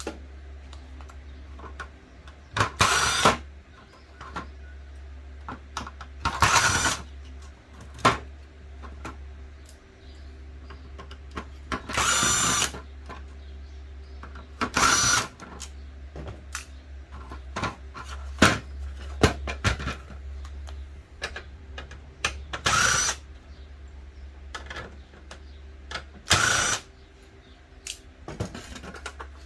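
Power drill run in about six short bursts, each under a second and a few seconds apart, with small clicks and taps of parts being handled in between.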